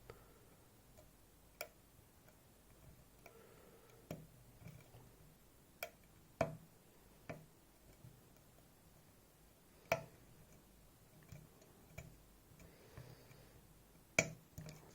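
Faint, irregular small metallic clicks of a lock pick probing and lifting the pins of a Goal Z 7-pin cylinder under tension, a few seconds apart, as the pins are pushed up above the milling.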